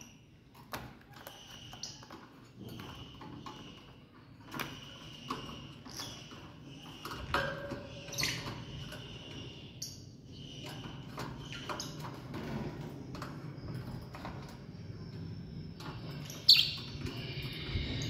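Blue masked lovebird chirping in short repeated notes, with scattered clicks and rattles of the wire cage as it flutters and climbs the bars. A sharp knock sounds near the end.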